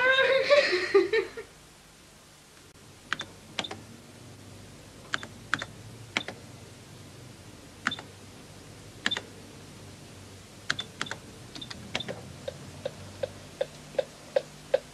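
Laughter dies away in the first second or two, then single keystrokes on a studio mix-automation computer's keyboard click at uneven intervals. Near the end they come with a run of short pitched blips, about three a second.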